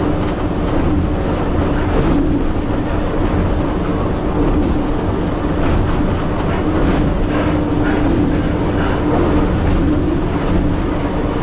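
Cab noise of an EP1 passenger electric locomotive running at speed: a steady low rumble of the train on the track with a constant hum over it and a few faint clicks.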